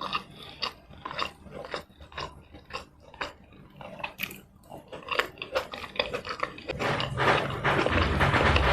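Close-miked eating sounds: chewing and mouth clicks while eating tomato rice and chicken in red chilli sauce, a few wet smacks a second, growing louder and denser near the end.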